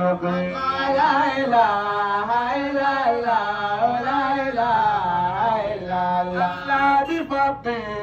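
A man's voice chanting a madaha, an Islamic praise song, solo and unaccompanied, in long phrases with the pitch gliding up and down through each line.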